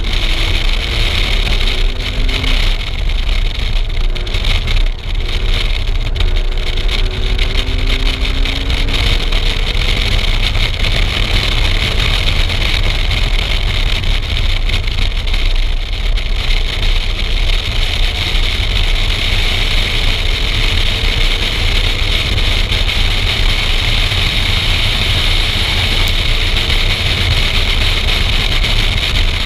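Race car at speed on track, heard from inside the cabin: a loud steady rush of wind and road noise, with the engine's note faintly audible climbing several times as the car accelerates.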